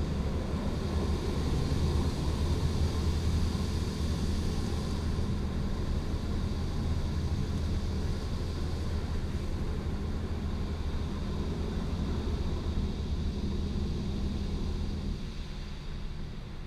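Automatic car wash heard from inside the car: water streams over the glass over a steady low machine hum. The hissing spray eases about five seconds in, and the hum drops away near the end.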